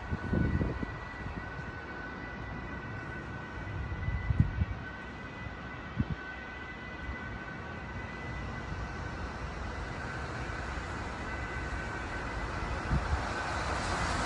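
Street traffic noise with wind buffeting the microphone in a few short gusts, and two faint steady high tones running through it.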